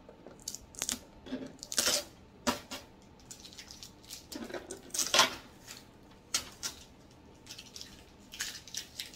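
Blue shipping tape being peeled off the plastic case of an Epson XP-15000 printer: a run of short rasps, with small clicks and rustles from handling. The loudest peels come about two and about five seconds in.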